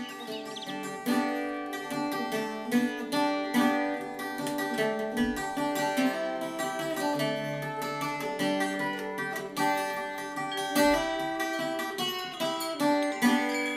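Plucked-string music, a guitar-like acoustic instrument picking a quick melody over chords.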